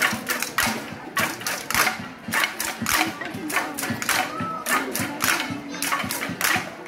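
Street parade crowd: voices chattering under a rapid, irregular run of sharp clacks, several a second.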